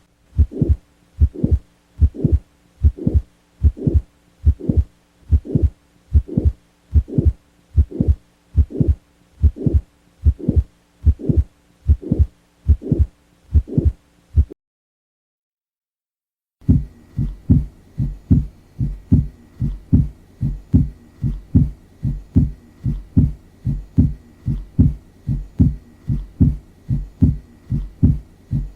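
Recorded heart sounds: a steady, regular heartbeat, then about two seconds of silence, then a second recording with a faster beat.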